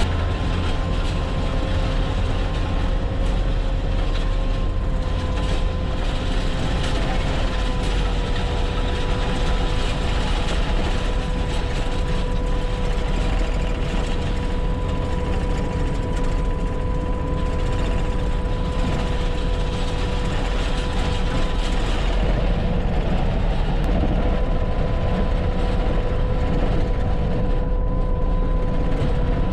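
Bobcat T650 compact track loader's diesel engine running steadily under load while it grades gravel, with a steady high whine over the engine.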